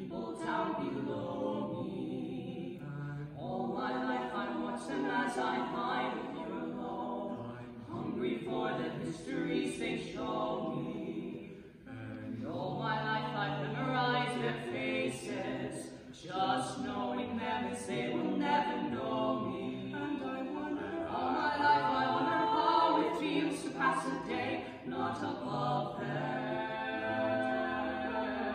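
Male barbershop quartet singing a cappella in four-part close harmony, with no instruments, pausing briefly twice between phrases.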